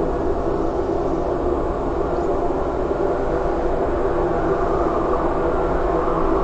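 A steady, dense wall of heavily distorted noise: many held tones massed together over a low rumble, with no beat or break, typical of harsh noise music.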